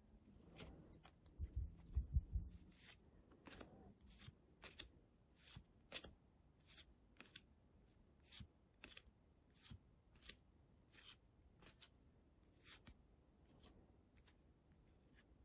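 Pokémon trading cards handled one at a time: each card is slid off the front of a held stack and tucked behind, giving a short, crisp card snap about twice a second. A few low thumps from handling come about two seconds in, the loudest sounds here.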